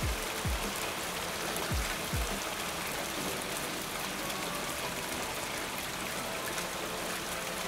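Steady rain falling, a dense even hiss, with a few deep falling thumps of background music in the first couple of seconds.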